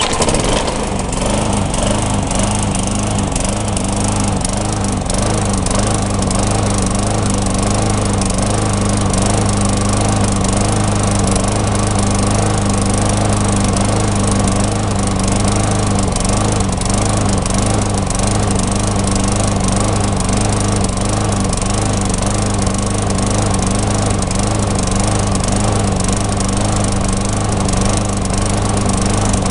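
Tecumseh lawn mower engine running steadily at speed with a miss, which the owner takes for the engine starving for fuel from running lean, a blockage in the carburetor.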